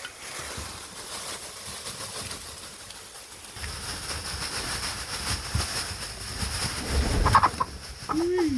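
Chickens clucking and calling over steady rustling and shuffling, with a short call about seven seconds in and a low, falling call near the end.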